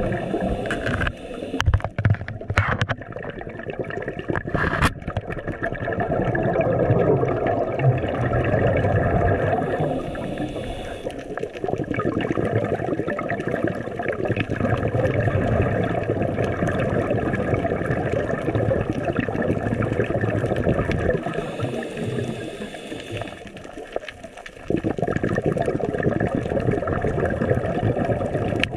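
Underwater ambience: a steady low rush of water with some gurgling, broken by a few sharp clicks in the first five seconds. The level drops briefly about twenty-three seconds in.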